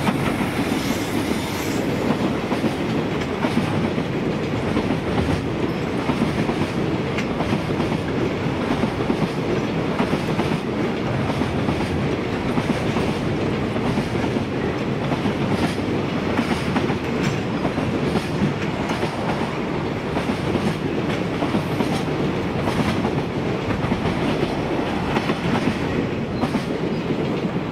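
Container wagons of a long freight train rolling past, their wheels clacking over the rail joints with a steady running noise underneath.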